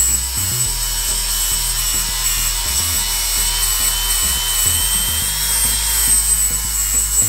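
DeWalt angle grinder with a flap disc grinding down a weld bead on a steel frame tube, blending it flush. The motor runs with a steady high whine under the abrasive hiss of the disc on the metal.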